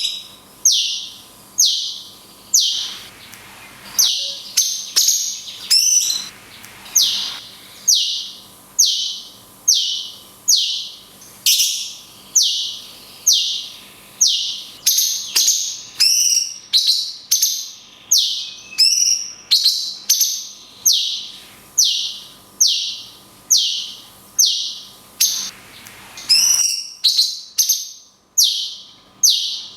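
Cucak cungkok songbird repeating its sharp, high 'kunti' shot call, about one call a second in a long even run.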